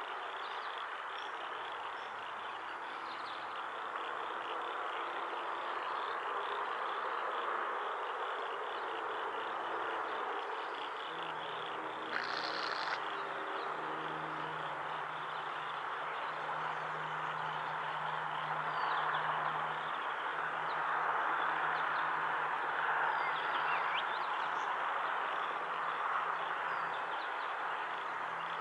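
Steady chorus of insects buzzing and chirping across a grassy pasture. A low, steady hum joins about a third of the way in.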